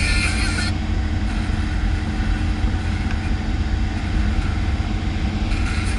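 Steady low road and engine rumble inside a VW T5 van's cabin while driving, with a brief louder hiss in the first second.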